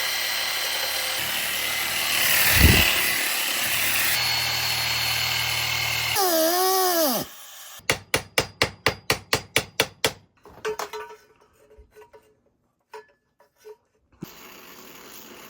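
Power tool cutting a notch in a galvanized steel exhaust pipe, running steadily for about seven seconds before stopping. A quick run of about a dozen taps follows, roughly five a second.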